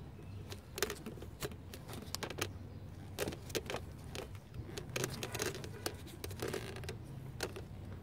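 Irregular small clicks and rattles from gloved hands handling and lifting the pin-studded top section of a Porsche 928's 14-pin electrical connector, over a low steady hum.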